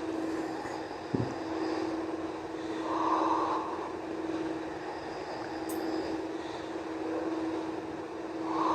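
A steady mechanical drone with a constant hum, like an engine or fan running. Two soft swells rise out of it, one about three seconds in and one at the end.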